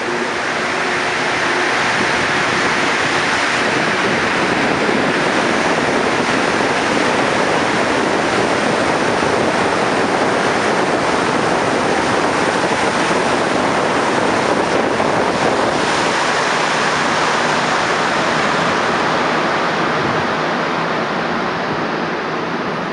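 Montreal MR-73 rubber-tyred metro car running at speed, heard from the car floor: a loud, steady roar of tyres and running gear that drops slightly about twenty seconds in.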